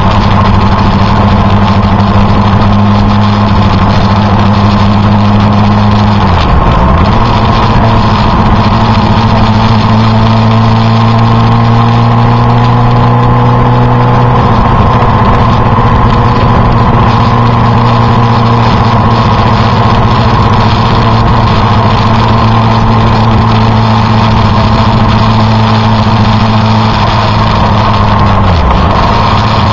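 A vehicle engine running steadily on the move, over a steady rush of wind and road noise. The engine note dips briefly and recovers twice, about six seconds in and near the end.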